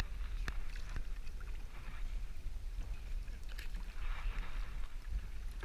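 Canoe paddle strokes splashing and dripping in the water, with a few sharp clicks and a steady low rumble of wind on the microphone.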